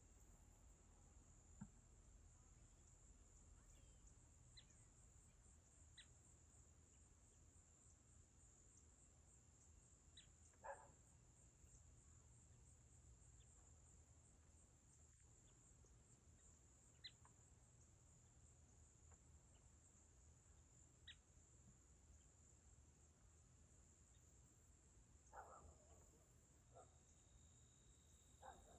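Faint, steady high-pitched trilling of crickets in the evening, with a few brief, scattered chirps over it.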